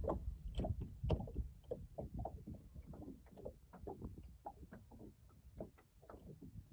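Small waves lapping against the hull of a bass boat sitting still on the water, a quick irregular patter of light slaps over a low rumble.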